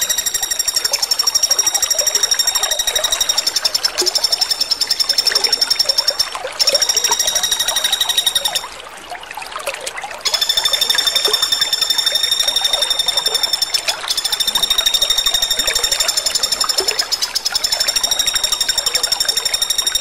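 Common flameback woodpecker (pelatuk bawang) calling in long, fast, high-pitched rattling trills, one after another with short gaps. There is a quieter pause of about a second and a half around nine seconds in.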